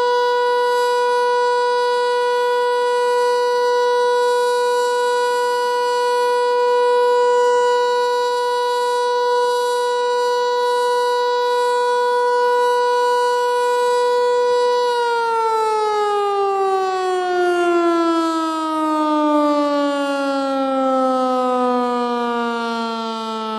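ASC T-121 outdoor warning siren sounding the alert signal as one steady tone. About fifteen seconds in the siren powers down and its pitch slides steadily lower as the rotor winds down at the end of the alert test.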